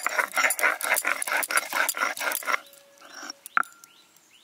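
Ginger and garlic being ground on a stone slab (shil-nora) with a stone roller: quick back-and-forth rasping strokes, about four a second, that stop about two and a half seconds in. A single sharp knock follows about a second later.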